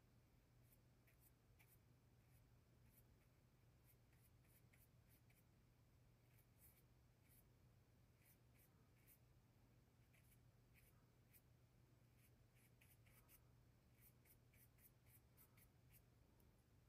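Faint scratching of a paintbrush's bristles across oil paint on a canvas board, in many short, irregular strokes, over a steady low hum.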